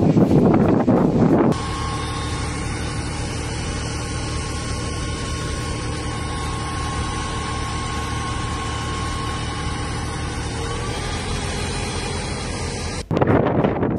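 Wind buffeting a phone microphone, cutting after about a second and a half to a steady machine hum with a faint high tone that fades out. The buffeting returns near the end.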